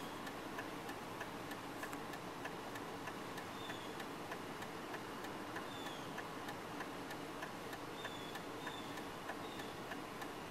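Light, regular ticking, several ticks a second, over a steady low hiss, with a few short, high, falling chirps scattered through.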